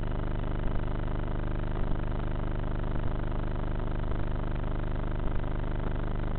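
Electric motor and pusher propeller of a Bixler RC foam plane running steadily, heard through the onboard FPV camera's microphone as a dense, even buzzing hum.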